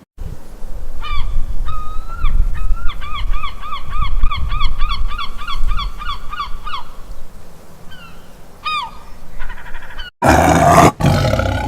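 Geese honking: a few separate honks, then a fast run of about four honks a second, then a couple more, over a low rumble. About ten seconds in it cuts to a loud roar.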